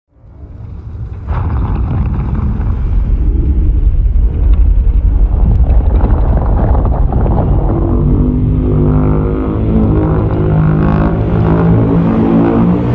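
Godzilla monster sound effect: a deep, heavy rumble fades in from silence and jumps louder about a second in. From about eight seconds in, steady pitched tones join it.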